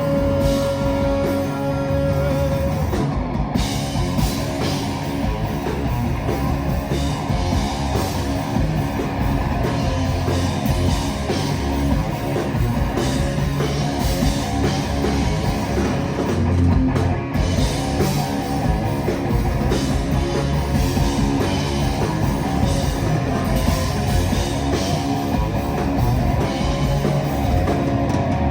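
A live rock band playing an instrumental passage with guitar and drum kit, with no singing.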